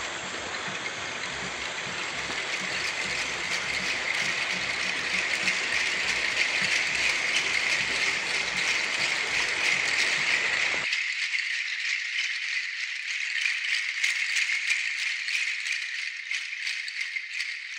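A continuous, dense rattling that grows slightly louder. The low background underneath drops away abruptly a little past halfway, leaving the rattling alone.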